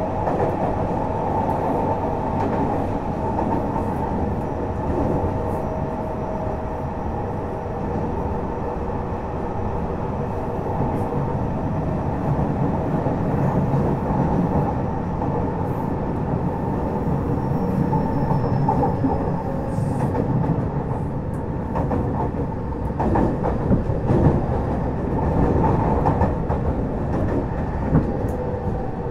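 Fukuoka City Subway 2000 series train with Hitachi GTO-VVVF traction, heard from inside the car while running: steady wheel and running noise with a few held whining tones and occasional clicks of the wheels over the rails.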